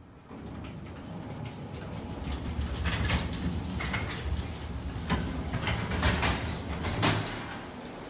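Elevator doors sliding open, then wire shopping carts rolling out over the door sill with a rumbling rattle and several sharp clattering knocks in the middle of the stretch.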